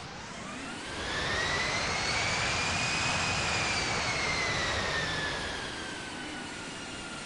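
Boeing 787 jet engines running with a whine that rises in pitch and grows louder for a couple of seconds, then slides back down and quietens, over a steady rumble.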